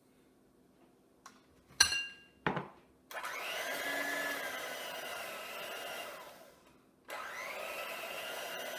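Two short metallic clinks, then an electric mixer running steadily, creaming butter and granulated sugar in a bowl. It dies away about two-thirds of the way through and starts again abruptly near the end.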